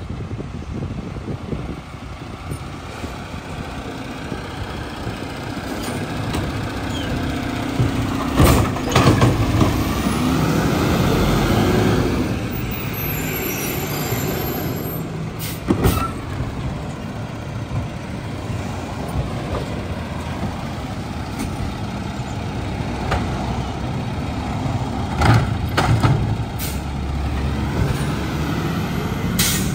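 Mack LR garbage truck with a McNeilus side-loader body, its engine running as it moves along the curb and stops, with several short air-brake hisses.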